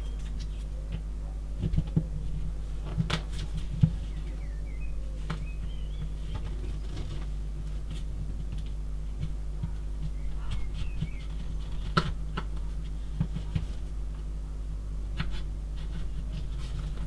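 Plastic pry tools clicking and scraping against an iPhone 6's frame as its cracked screen is pried up: a few sharp clicks, the clearest about three, four and twelve seconds in, over a steady low hum.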